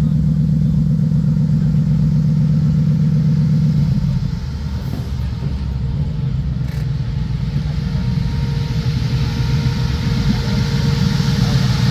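V8 engine of a Shelby Cobra replica roadster rumbling steadily through its side pipes as it rolls past at low speed, dropping off about four seconds in. The sound builds again near the end as a second Cobra replica pulls up.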